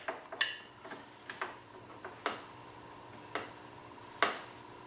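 Ratchet wrench clicking as a socket is worked on an engine pulley bolt: single sharp clicks, about seven of them, irregularly spaced.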